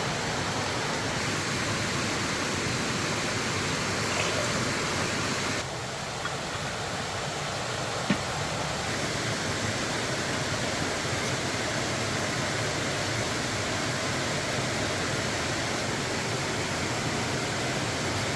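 Steady rushing of water, an even hiss that runs without a break, dipping slightly in level about six seconds in and recovering a few seconds later.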